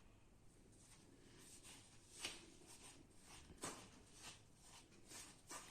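Near silence, with a few faint, soft scrapes and rustles of a ground urad dal and jaggery flour mixture being mixed with sesame oil.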